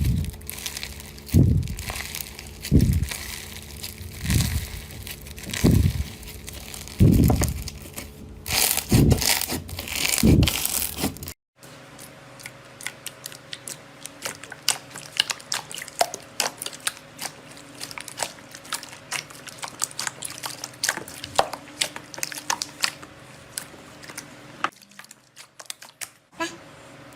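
Slime being squeezed and pressed by hand: a loud wet squelch about every second and a half for the first half. Then, after a sudden cut, a quieter run of fine crackles and clicks as the slime is worked.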